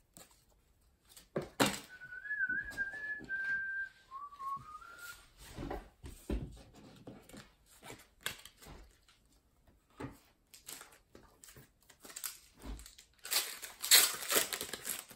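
A few short whistled notes about two seconds in, wavering and then stepping lower, among light clicks and taps of trading cards being handled. Near the end, a loud crinkling rip as a foil trading-card pack wrapper is torn open.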